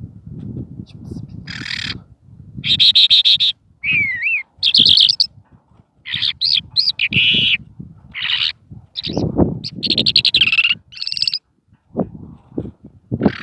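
Songbird singing a varied phrase of chirps, gliding whistles and rapid trills, broken by short pauses.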